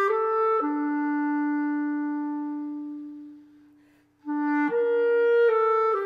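B-flat clarinet (Buffet Crampon Tradition) playing a slow melody: a few notes, then a long held low note that fades away almost to silence, a short breath pause, and a new phrase beginning about four seconds in.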